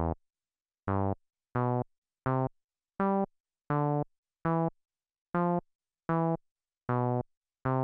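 Donner B1 monophonic analog bass synthesizer sounding short, separate low notes, one key at a time, about every three-quarters of a second, with the pitch changing from note to note. Each note is heard as it is keyed into the 303-style step sequencer.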